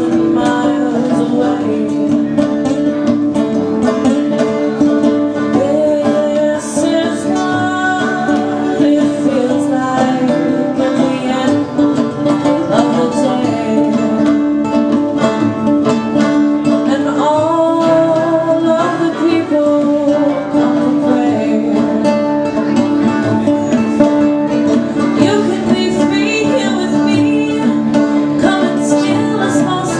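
Live acoustic folk-country band: a woman singing over a strummed nylon-string acoustic guitar and a five-string banjo, with hand drums in the mix.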